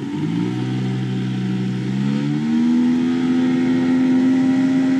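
Water-jet boat's engine speeding up, its pitch climbing over the first two to three seconds, then running steady at speed.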